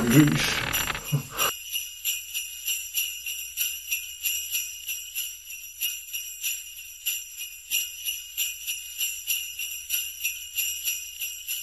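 Sleigh bells jingling in a steady rhythm, about two to three shakes a second, stopping abruptly at the end. For the first second and a half a lower, voice-like sound runs under them.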